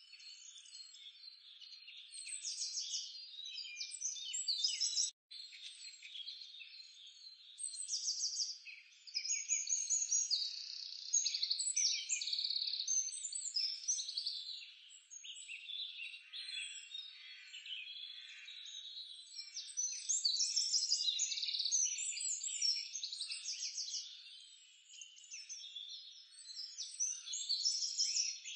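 Outdoor chorus of small animal calls, chirping birds with frogs among them, made of many overlapping high chirps and short calls that swell in louder stretches, with a brief dropout about five seconds in.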